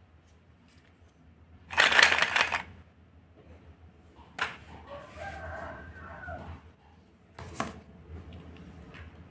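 Plastic toy fruits and vegetables rattling and clattering in a plastic basket as it is picked up, loudest about two seconds in, followed by two sharp knocks as it is set down. A faint wavering call sounds in the background midway.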